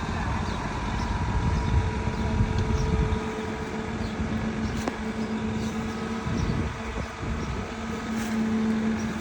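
Heavy construction machine's diesel engine running, a steady hum over a deep rumble that eases about three seconds in.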